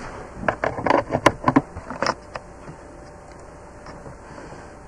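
Handling noise at a computer desk: a quick flurry of clicks and knocks, such as a cable being plugged in or keys being pressed, over the first two seconds or so, then a faint steady electrical hum.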